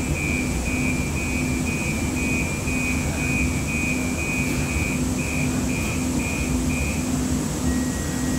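Siemens S200 light-rail car's warning signal beeping rapidly, about two and a half high beeps a second, stopping about seven seconds in, typical of the door-closing warning while the car stands at a stop. Underneath, a low hum pulses about twice a second.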